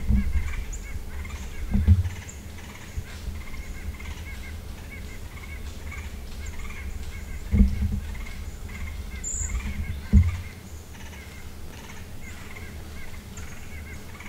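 Faint bird calls repeating throughout, with a few dull low thumps about two, seven and a half, and ten seconds in.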